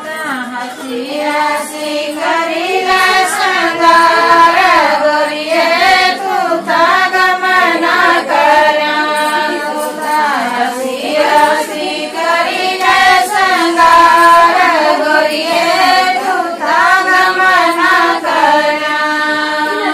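Women singing a Himachali Pahari vidai folk song, the bride's farewell song, in long sung phrases that rise and fall in pitch.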